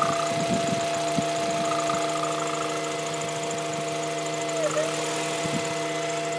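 Acura Integra GSR's four-cylinder engine running with a steady hum. The hum comes from the breather tube running from the cylinder head into the intake tubing and is the sign of a bad PCV valve.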